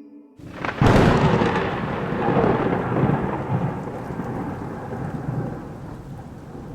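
A thunderclap: a sudden crack about a second in, then a long rolling rumble that slowly dies away, over steady rain.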